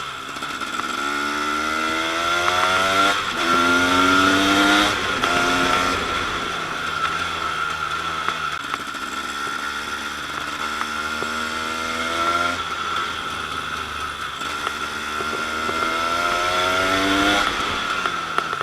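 KTM 250 EXC two-stroke single-cylinder engine accelerating hard, its pitch climbing in a series of rising sweeps, each cut off by a brief dip as it shifts up a gear. A steady high-pitched tone runs underneath.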